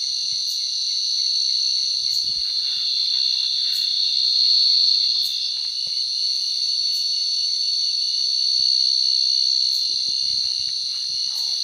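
Night insect chorus: a steady, shrill, high-pitched drone of many insects, with a short high chirp repeating about every second and a half.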